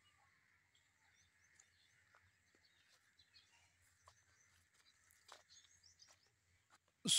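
Faint rural outdoor ambience: a steady high-pitched drone with scattered small bird chirps and ticks. Right at the end a sudden loud rushing noise cuts in.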